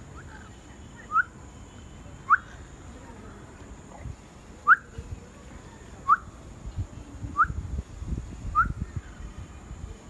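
Six short, clear whistles, each a quick rising note, spaced about a second or more apart, with a low rumble near the end.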